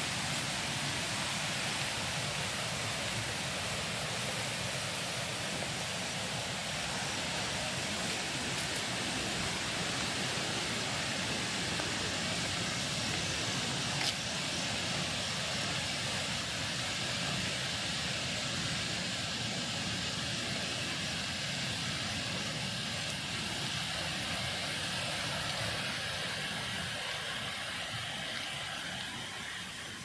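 Steady rushing of running water from a forest stream, with one brief click about halfway through. The rush fades over the last few seconds.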